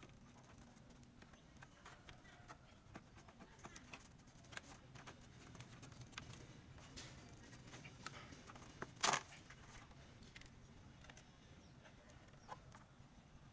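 Scattered light clicks and taps of things being handled, with one louder scraping click about nine seconds in.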